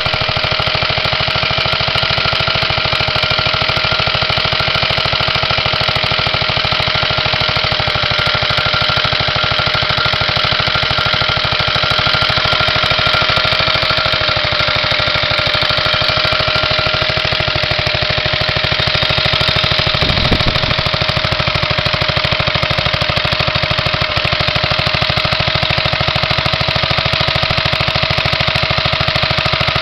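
Nelson Bros. Model 3VSG single-cylinder air-cooled gasoline engine running steadily, its exhaust firing in a rapid, even beat.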